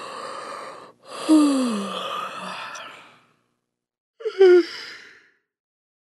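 Yawns: a yawn tails off, then about a second in a long yawn with a falling pitch, and about four seconds in a shorter, higher yawn that drops in pitch.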